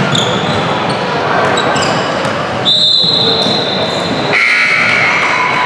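Basketball game sounds in a gymnasium: the ball bouncing on the hardwood and brief sneaker squeaks over a steady crowd murmur. A longer high-pitched squeal starts about halfway through and holds for a couple of seconds.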